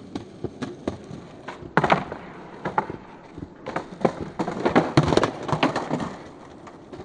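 Skateboard wheels rolling on paving, with a sharp clack near 2 seconds in, then about two seconds of scraping and clattering as boards slide along and knock against a wooden bench ledge, one board clattering off.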